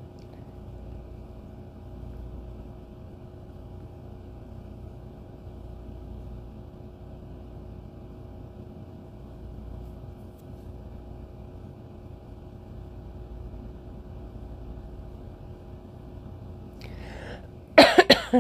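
Steady low room hum with a few faint steady tones. Near the end comes a sudden loud knock and rustle close to the microphone.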